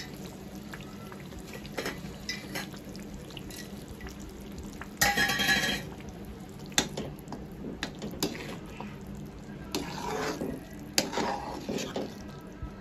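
A metal spatula stirring thick walnut halwa in a metal kadhai, scraping the pan with a few sharp knocks against it, the loudest a brief harsh scrape about five seconds in. A steady low hum runs underneath.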